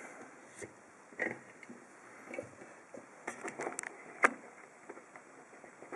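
A brass padlock being handled and clamped into a small vise with padded jaws: scattered light clicks and knocks of metal against plastic, a quick cluster a little after three seconds and the sharpest knock just after four seconds in.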